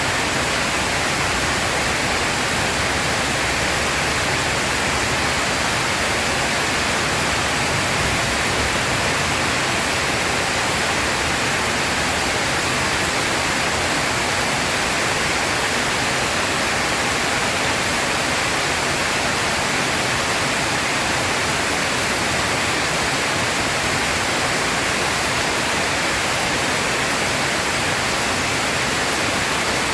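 Heavy rain pouring steadily, an even hiss with no thunder.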